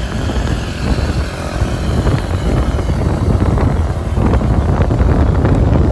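Loud, steady rushing noise of a vehicle in motion, heavy in the low end with wind buffeting the microphone, growing a little louder toward the end.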